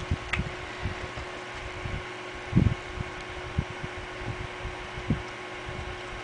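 Soft, irregular low bumps from handling as an iPod Touch is wiped with a microfiber cloth, over a steady low hum; the loudest bump comes about two and a half seconds in.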